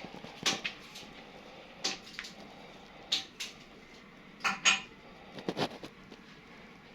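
Scattered short clinks and knocks, irregularly spaced and about a second apart, a few of them briefly ringing.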